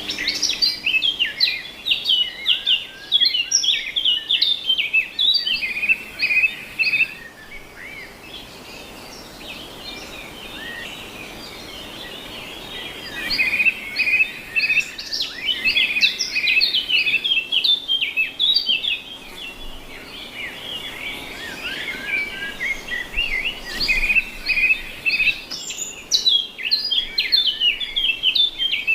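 Many small aviary songbirds chirping and twittering at once in quick, high calls, in busy spells with a quieter stretch of a few seconds in the first half.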